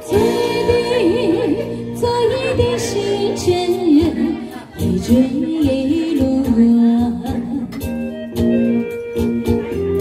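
A woman singing a Chinese pop song into a microphone over amplified instrumental backing, her melody rising and falling.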